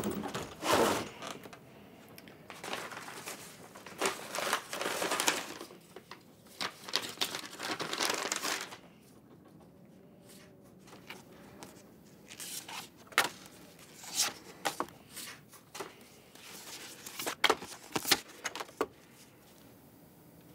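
A hard case being handled on a wooden floor and opened, then papers inside rustled and leafed through, with loud spells of rustling in the first half and sharp short flicks of paper later on.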